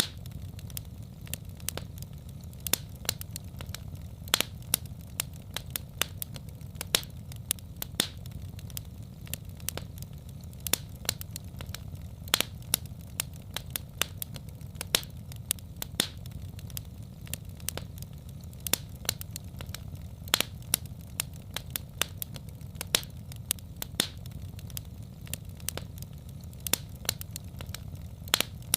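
Wood fire in a fireplace crackling: irregular sharp pops and snaps, a few each second, over a steady low rumble.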